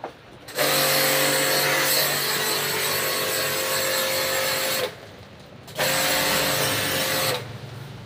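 Portable electric pressure-washer pump used for air-conditioner water cleaning, switched on twice: about four seconds, then a short pause, then about a second and a half. Each run is a steady motor tone under a loud hiss of spray and cuts off sharply.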